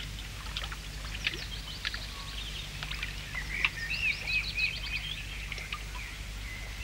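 Birds chirping and twittering, with a run of quick repeated whistled notes about halfway through, over a steady low hum.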